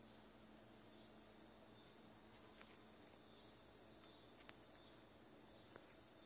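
Near silence, with faint steady insect chirping and three soft ticks spread through it.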